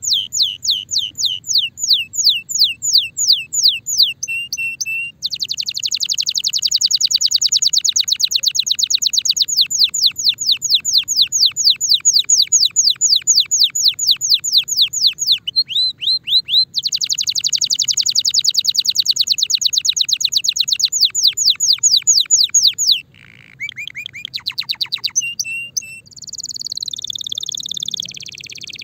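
Timbrado canary in breeding condition singing: long rolling trills of rapidly repeated, high falling notes, which speed up after about five seconds and break off briefly twice, then a few lower notes and, near the end, a continuous buzzy warble.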